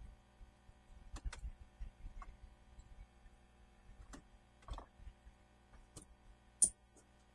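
Scattered light clicks and taps at an irregular pace, like tools and small parts being handled, with one sharper click near the end.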